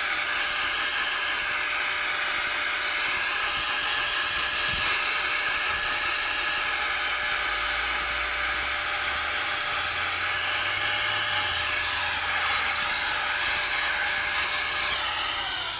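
Electric air blower running steadily, blowing dust out of laptop parts with a strong hiss and a motor whine, then winding down near the end as it is switched off.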